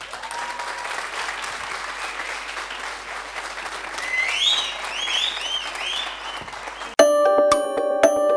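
Audience applauding, with several rising-and-falling whistles about halfway through. About seven seconds in, this cuts suddenly to music with a quick, regular beat.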